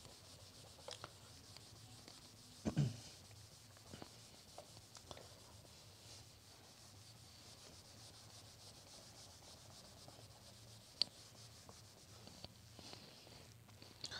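Handheld duster rubbing across a whiteboard, wiping it clean: a faint, steady scrubbing. There is one brief louder low thump about three seconds in, and a single sharp click later.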